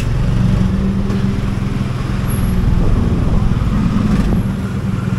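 Small motor scooter engine running steadily under the rider at low city speed, a continuous low hum mixed with tyre, wind and street traffic noise.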